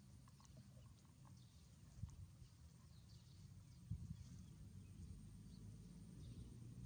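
Near silence: a faint low rumble with two soft thumps, about two and four seconds in.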